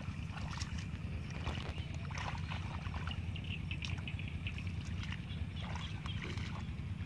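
Shallow muddy paddy water sloshing and splashing in short, scattered bursts as bare feet wade and hands grope for fish, over a steady low rumble.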